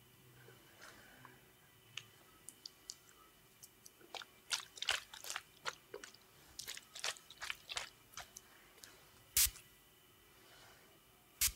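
Close-miked ASMR handling of plastic hair-care bottles: a run of soft clicks, taps and crackles, densest from about four to eight seconds in, then two sharper, louder knocks near the end.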